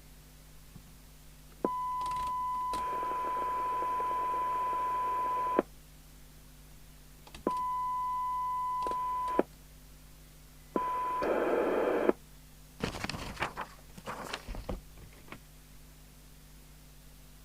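CB radio's loudspeaker sounding a steady 1 kHz test tone that cuts in and out three times as the squelch opens and closes near its threshold, with hiss mixed in during the first and last openings. A few clicks and knocks follow near the end.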